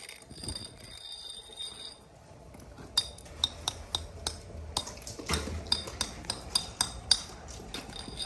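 A steady high whine that stops about two seconds in, then a run of sharp, irregular clinks, roughly two a second, as hard pool plaster is struck and chipped loose from the pool's surface.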